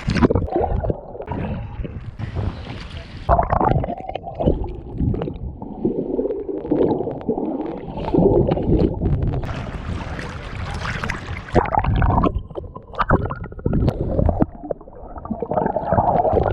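Sea water splashing and gurgling around a camera that is dunked under the surface and brought back up in small waves. The underwater stretches sound muffled, with sharper splashes several times as the camera breaks the surface, around three seconds in and again around ten to twelve seconds in.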